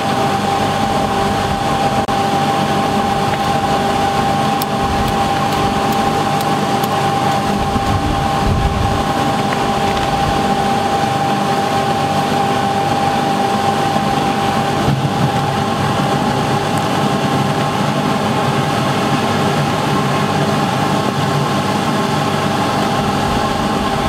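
Air blower running steadily with a constant whine, blowing air into a drip-style waste-oil burner in a drum furnace during light-up; its air inlet is partly blocked off.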